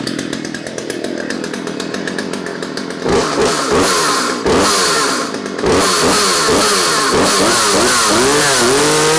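Poulan Wood Shark two-stroke chainsaw running: first a fast idle, then revved repeatedly from about three seconds in, the engine speed rising and falling in quick throttle blips as the chain spins.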